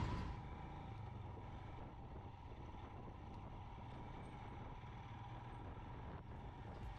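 Faint, steady low hum of a vehicle engine, with a light noisy haze over it.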